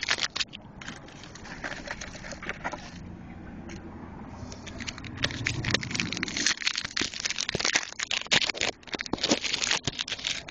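Crinkling foil trading-card pack wrapper and cards being handled: a rapid run of small crackles and rustles, busiest in the second half, over a faint low rumble in the first few seconds.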